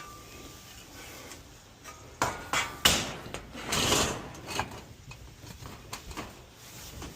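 Work on a wooden structure: a few sharp knocks of wood and tools about two to three seconds in, a longer rough noise about four seconds in, then scattered lighter clicks and clatter.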